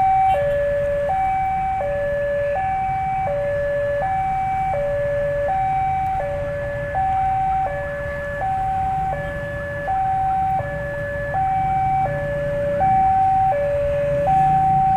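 Railway level-crossing warning alarm sounding continuously: an electronic two-tone signal alternating between a higher and a lower note, each held about three-quarters of a second. It warns that a train is approaching and the barriers are down.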